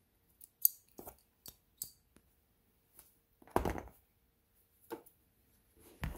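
Small clicks and knocks from sewing tools and fabric being handled on a work surface, with one louder rustling knock a little past halfway.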